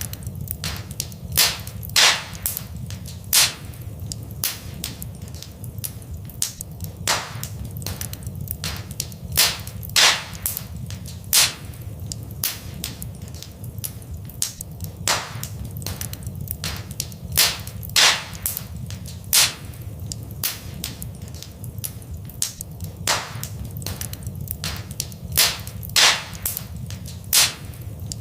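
Fireplace fire crackling, with irregular sharp pops, a few much louder than the rest, over a steady low rumble.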